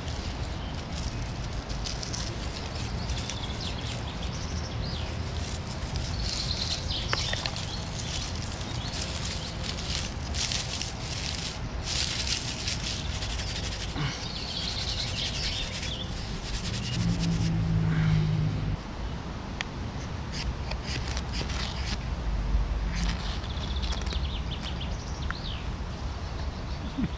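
Outdoor ambience with birds chirping, over the crackle and rustle of dry twigs and dry grass being broken and twisted into a tinder nest by hand. A brief low drone comes in about two-thirds of the way through.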